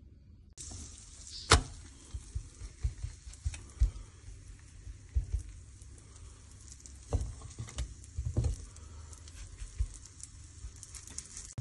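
Aloo paratha sizzling in melted butter in a non-stick frying pan, starting about half a second in. Irregular low knocks and taps come as it is pressed and shifted by hand, with one sharp click about one and a half seconds in.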